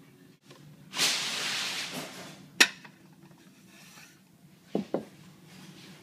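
Handling noise around a plastic coffee dripper on a wooden table: a rushing hiss that fades over about a second, a sharp click, then two quick knocks near the end.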